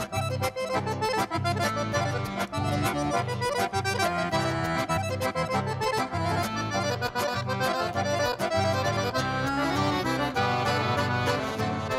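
Piano accordion playing a fast instrumental gaúcho melody over a steady, pulsing bass accompaniment.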